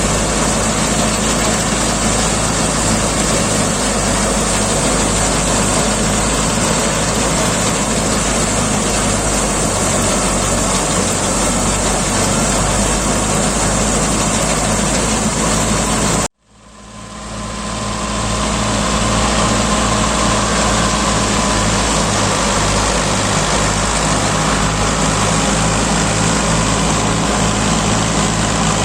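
Tractor-driven wheat thresher running steadily: a loud mechanical drone with a low beat repeating about twice a second. The sound cuts out abruptly a little past halfway and fades back in over a couple of seconds.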